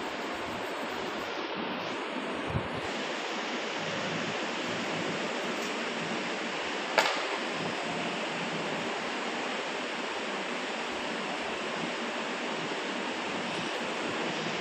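Steady, even hiss of background noise, with a soft tap about two and a half seconds in and a sharp click about seven seconds in.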